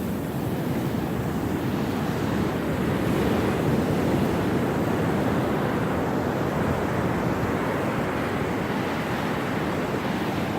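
Surf breaking and washing ashore, mixed with wind blowing across the microphone: a steady rushing noise that swells slightly a few seconds in.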